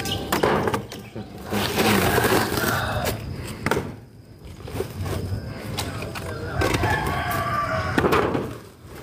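A rooster crowing twice, once about two seconds in and again near the end, over scattered clicks and knocks of dry firewood being handled.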